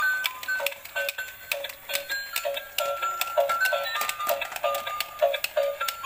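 Battery-operated light-up ladybug toy playing its built-in electronic tune through a tiny speaker: a thin, beeping melody over a steady ticking beat.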